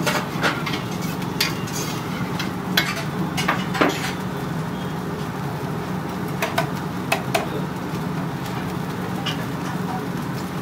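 A metal ladle stirring sauce in a steel wok, knocking and scraping against the pan several times in the first four seconds, then only a few light ticks later. Underneath, the sauce sizzles over the gas flame with a steady low hum.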